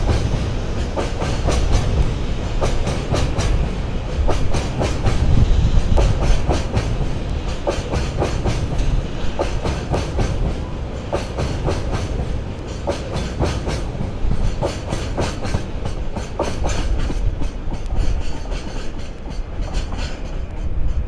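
Freight train of loaded oil tank wagons rolling past at speed, the wheels clicking over the rail joints in a rapid clickety-clack over a steady low rumble. The clicking thins and the sound eases a little near the end as the last wagon goes by.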